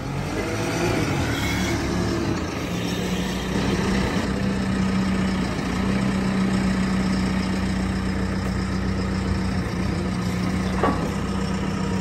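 An engine idling steadily with an even low hum.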